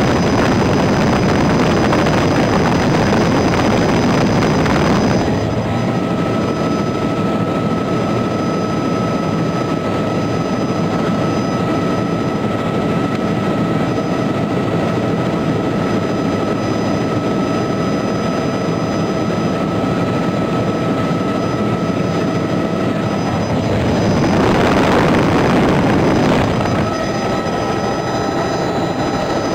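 Helicopter engine and rotor noise, loud and steady, with a thin steady whine over it through the middle and louder rushing stretches at the start and again about 25 seconds in.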